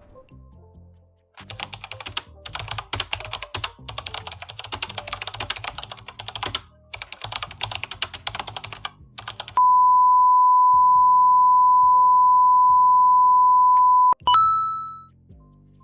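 Computer keyboard typing sound effect, a fast run of key clicks for about eight seconds, then a steady beep tone held for about four and a half seconds that cuts off into a bright ringing ding near the end, over a quiet music bed.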